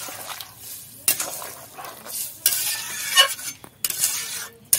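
Long metal spatula stirring a watery vegetable curry in a metal pot, with irregular scrapes against the pot over the hiss of the simmering broth.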